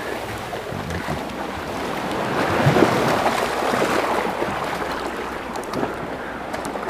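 Small sea waves washing and splashing against granite boulders at the shoreline, with wind buffeting the microphone. The wash swells a little about three seconds in.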